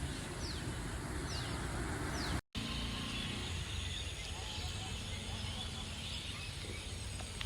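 Steady background noise with short falling chirps about once a second in the first two seconds. The sound drops out briefly at a cut.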